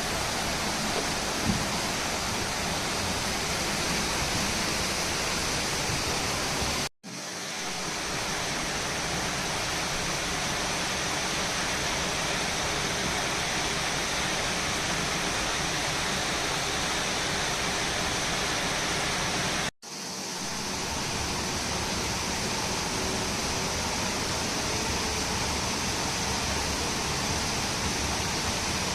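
Mountain river water rushing steadily. It cuts out twice, briefly, about 7 and 20 seconds in, and each time fades back in.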